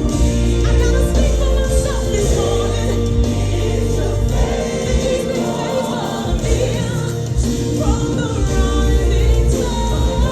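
Live gospel worship music: a choir singing held notes with a band over a steady bass.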